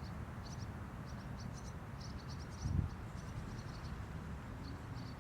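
Outdoor ambience: a steady low rumble with many short, high-pitched chirps in quick little clusters from insects or small birds. There is one brief louder low bump about two and a half seconds in.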